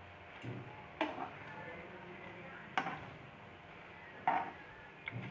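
A kitchen utensil knocking and clinking against a pan or bowl a few times, a second or two apart, as fried jalebis are lifted out of the oil into the sugar syrup.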